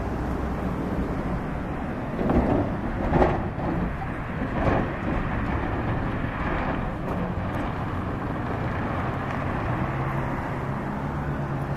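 Road traffic at a railroad grade crossing: cars passing, loudest about two to three seconds in and again near five seconds, over the low steady hum of the hi-rail pickup trucks' engines.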